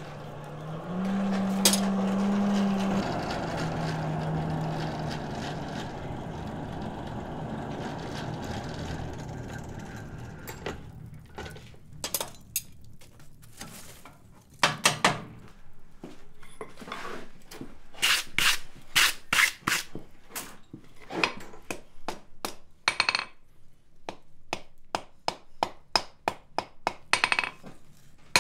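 Coal forge fire with air rushing through it and a low hum from its blower that rises briefly in pitch and then fades out. From about eleven seconds in, irregular hammer blows on hot steel at the anvil, some in quick runs, as the heated piece is curved.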